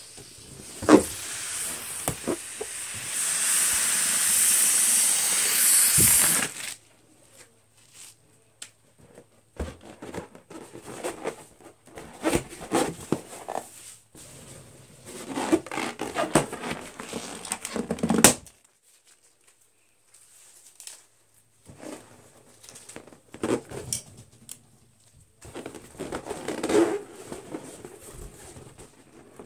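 Air hissing out of a latex balloon as it is let down, for about five seconds, then stopping suddenly. After that comes intermittent rubbing and squeaking of latex balloons being handled, with a sharp snap about a second in and another about two-thirds of the way through.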